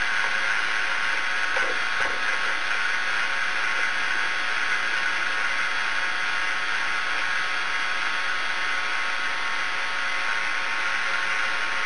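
Hell Feldfernschreiber (Feld-Hell) teleprinter running, its motor-driven character drum turning with a steady mechanical whir.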